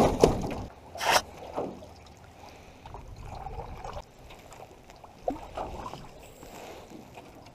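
Clunks and knocks of someone stepping into an aluminum canoe and settling in, the sharpest about a second in, then lighter knocks against the hull with water trickling and lapping.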